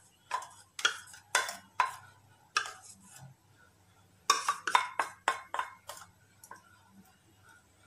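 A wooden spatula and a ghee container knocking and scraping against a nonstick frying pan as ghee is added and spread. The sharp taps come scattered through the first few seconds, then in a quicker cluster around the middle.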